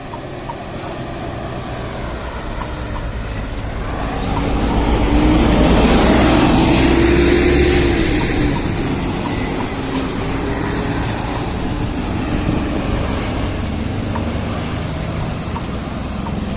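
A bus's engine rumbling past close by on the road, swelling to its loudest about five to eight seconds in and then fading, over steady traffic noise.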